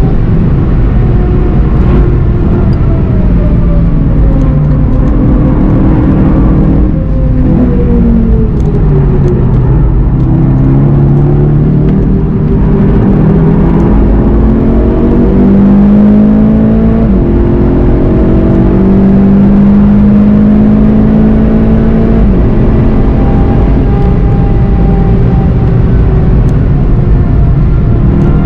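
VW Golf GTI TCR's turbocharged four-cylinder engine under track driving. Its pitch falls over the first ten seconds as the car slows hard for a corner, then climbs in steps through the gears as it accelerates out again.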